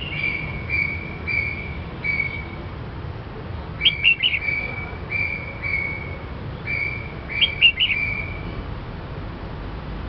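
Caged red-whiskered bulbul singing: a run of short, clear whistled notes, broken twice, about four and seven and a half seconds in, by a quicker, brighter rising phrase.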